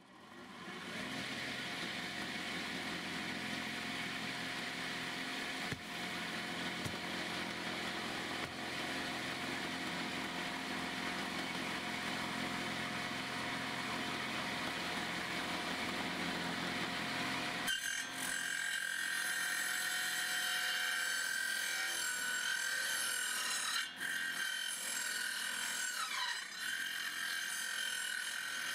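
Circular saw starting up and running steadily, then about 18 seconds in its sound turns to a higher whine as the old blade cuts through a wooden window-frame beam.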